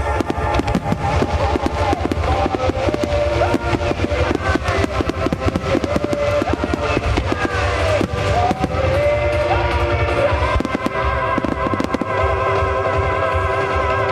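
Fireworks bursting and crackling in quick, dense succession, set to music playing at the same time.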